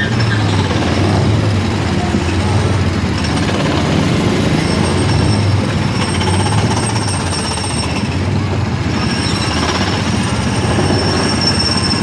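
Small gasoline engine of an Autopia ride car running steadily as the car creeps forward in a queue, with the engines of the surrounding ride cars running close by.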